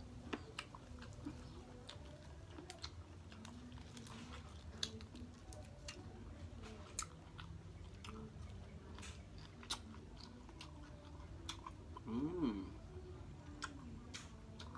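Close-miked chewing and biting of boiled chicken, with many small irregular wet mouth clicks. A short voiced sound rises and falls in pitch about twelve seconds in.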